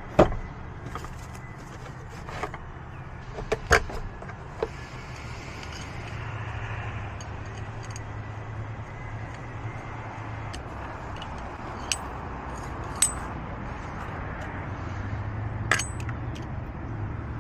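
A 2-pound slide hammer worked on a bolt JB-welded into a 3/4 spark plug socket stuck in a spark plug well, to pull the socket out. Sharp metal clacks come at irregular times, several in the first few seconds and then a few spread apart, over a steady low hum.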